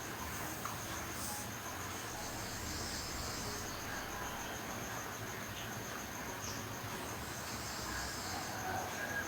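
Quiet, steady high-pitched trill over a low hiss.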